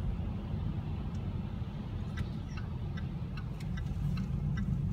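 Low, steady in-cabin rumble of a Jaguar XF rolling slowly on a wet surface, with a series of light ticks starting about two seconds in.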